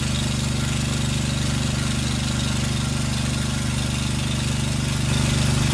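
Pressure washer's petrol engine running steadily, with a steady hiss over it.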